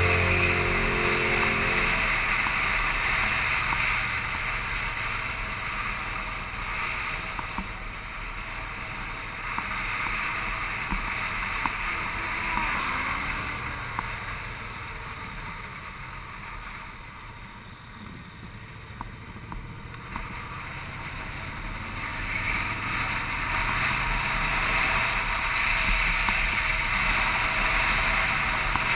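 Riding motorcycle heard through the action camera's microphone: steady wind and road rush over the engine's low running note. It grows quieter around the middle as the bike slows, then louder again as it picks up speed.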